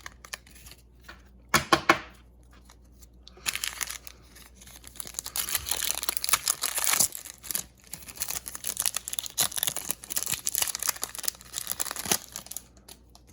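Foil wrapper of a Pokémon card booster pack being torn open and crinkled, a couple of sharp rustles early, then about eight seconds of continuous crackling.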